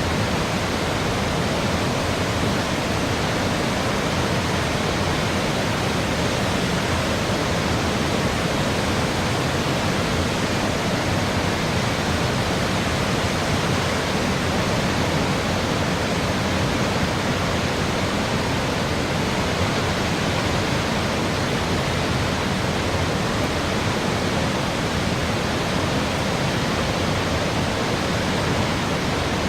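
Cumberland Falls, a large waterfall on the Cumberland River: falling water rushing in a steady, even wash of noise that does not change.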